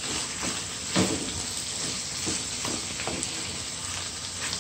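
Pineapple in barbecue sauce sizzling in a pot while it is stirred, with scattered scrapes and taps of the spoon against the pot, one stronger tap about a second in.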